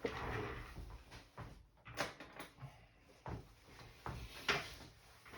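Hand tools and small parts being handled during a laptop teardown: a short rustling shuffle, then several sharp clicks and taps, the loudest about two seconds in and again about four and a half seconds in.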